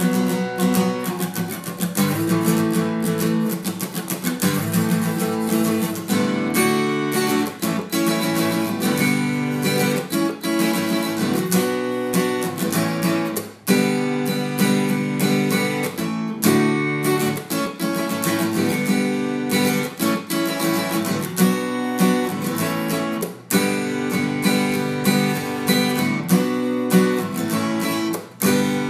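Guitar music with strummed and picked chords and no singing, pausing for a moment a few times.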